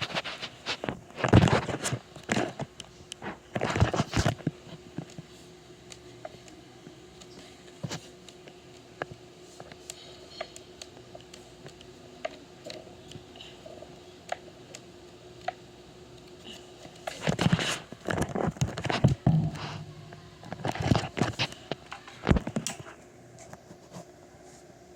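Two bouts of close clattering knocks and scrapes, one at the start and one about two-thirds of the way in, with a faint steady hum holding one even tone in the quieter stretch between them.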